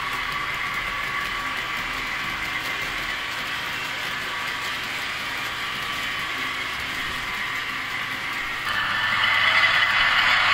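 Model freight train running on the layout track: a steady whirring and rolling noise from the locomotive's motor and the wagons' wheels on the rails. About nine seconds in, a louder, steadier rushing noise with a low hum suddenly takes over.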